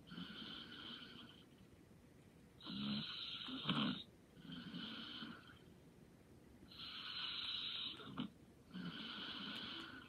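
A person snoring lightly in sleep: slow, regular breaths in and out about every two seconds, with a short snort-like catch near the end of a couple of the breaths.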